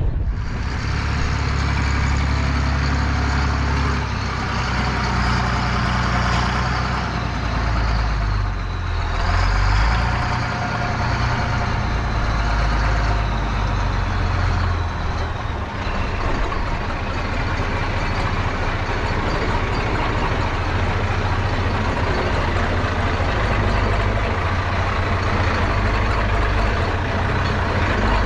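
Allis-Chalmers 7045 tractor's six-cylinder turbo diesel running steadily, its engine speed changing briefly about eight to ten seconds in.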